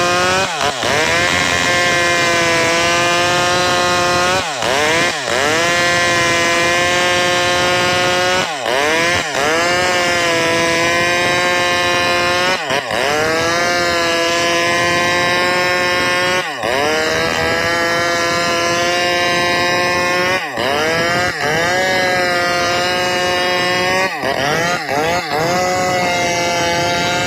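Maestro two-stroke chainsaw held at high revs while cutting gmelina (white teak) wood. Its pitch drops sharply and recovers about every four seconds, sometimes two or three times in quick succession.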